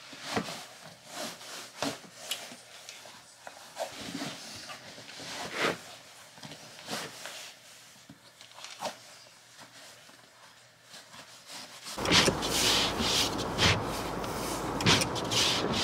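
Bootlaces being pulled through the eyelets of lace-up leather boots: soft, scattered rubs and small clicks. About twelve seconds in this gives way to the steady low rumble inside a running car's cabin, with a few sharp knocks.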